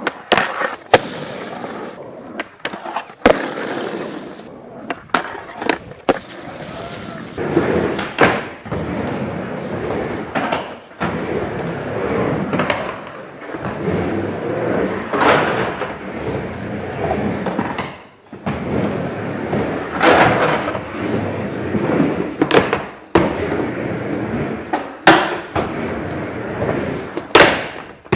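Skateboard wheels rolling back and forth on a mini ramp, swelling and fading with each run across the transitions. Sharp clacks of the board's trucks and tail hitting the metal coping and landing come every few seconds.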